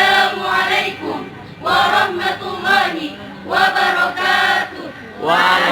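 A choir of many voices singing together in short phrases, with brief breaks between them.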